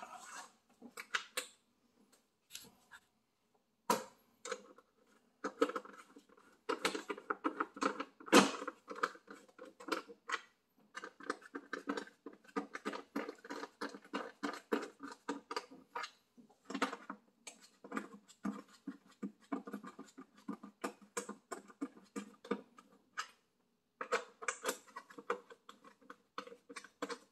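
Rapid clicking of a ratchet wrench tightening screws into a plastic cover, in irregular runs with short pauses, starting sparse and growing denser after a few seconds.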